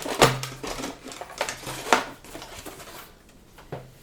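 Hard plastic and metal door-lock parts being handled and set down: a few sharp knocks with light clicking and clatter between, quieter near the end.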